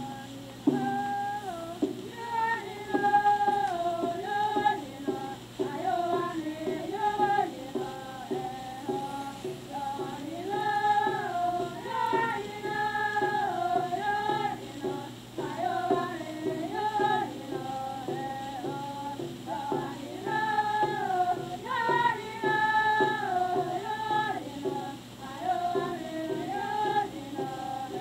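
Outro music: a 1913 recording of Seneca tribal song, high voices singing a melody that steps up and down over a steady low hum.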